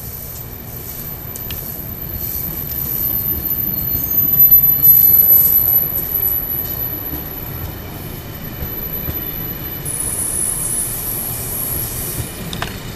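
Amtrak passenger coaches passing close at speed: a steady rush of wheels on the rails, loudest about four to six seconds in. Around ten seconds in a high wheel squeal rises over it for a couple of seconds.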